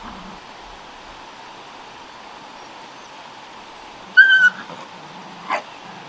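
A puppy gives one short, high-pitched yelp about four seconds in, and a shorter, sharper yip about a second later.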